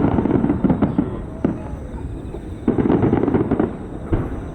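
Aerial fireworks bursting in a rapid barrage of bangs and crackles, densest in the first second and again a little past the middle.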